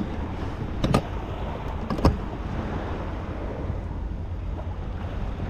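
Steady wind and water around an inflatable boat, with two short sharp knocks about a second apart near the start from the man handling the Hangkai 15 hp outboard, which is not yet running.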